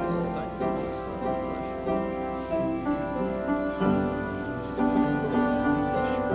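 Slow instrumental music of held chords that change every second or so, the quiet background music at a church altar call.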